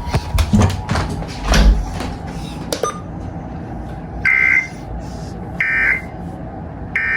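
A few clicks and knocks of handling, then three short electronic beeps, evenly spaced about a second and a half apart, from an alert device.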